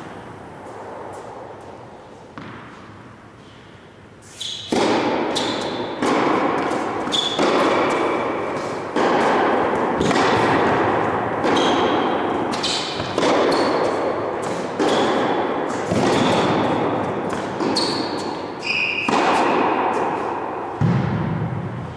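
Tennis rally on a hard indoor court: the ball is struck by rackets and bounces, sharp hits about once a second, many with a short high ping from the strings, each ringing on in a long echo around the large hall. The hitting starts about four seconds in.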